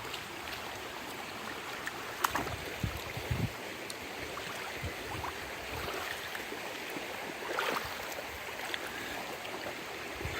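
Creek water flowing steadily, with a few sharp knocks and low thumps, the sharpest about two seconds in.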